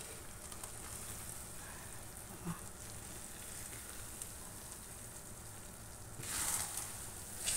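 Faint sizzling of thick purple glutinous-rice biko cooking in a frying pan as it is stirred with a spatula, with a louder hiss about six seconds in.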